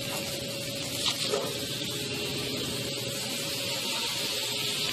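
Meats and sausages sizzling on an Argentine parrilla grill: a steady hiss, with a faint steady hum underneath.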